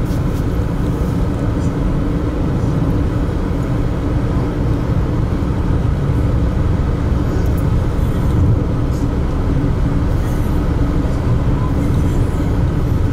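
Steady rumble of a moving car heard from inside the cabin: engine, tyre and road noise, with a faint steady hum.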